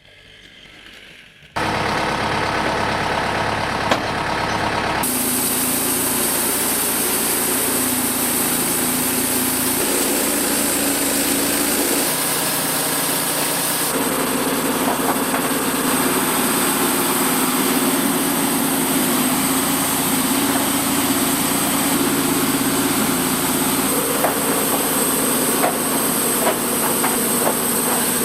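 A large engine running steadily, starting abruptly about a second and a half in, with sudden changes in its tone about 5 and 14 seconds in.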